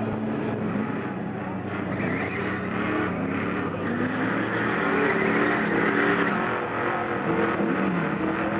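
Camaro and Mustang engines accelerating hard side by side down a drag strip, running naturally aspirated. The engine notes repeatedly climb in pitch and drop back at the gear changes.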